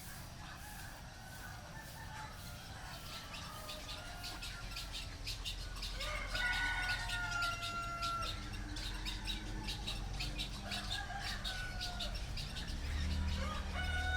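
Rural village ambience: a rooster crows once about six seconds in and starts another crow near the end, over steady rapid high-pitched chirping from small birds. The whole scene slowly grows louder.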